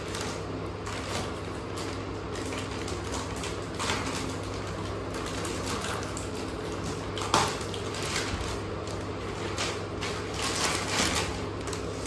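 Graphics card packaging being cut open and handled: scattered rustles and scrapes, with a sharper crackle about four seconds in, another about seven seconds in, and a quick run of them near the end, over a steady low hum.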